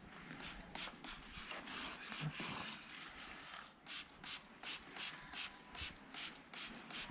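Rhythmic rubbing or scraping strokes, about three a second, becoming steady and regular about four seconds in after fainter, irregular strokes.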